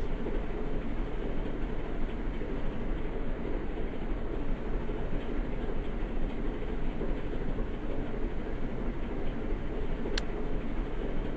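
Steady rumble of passing road traffic, with one short sharp click near the end.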